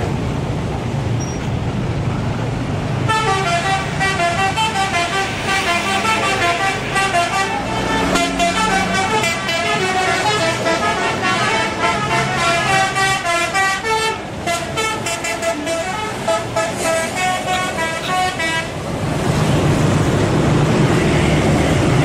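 Tour bus's multi-tone telolet horn playing a rapid melody of short notes for about fifteen seconds, over the bus's diesel engine running. The tune starts about three seconds in and stops a few seconds before the end, leaving the engine louder.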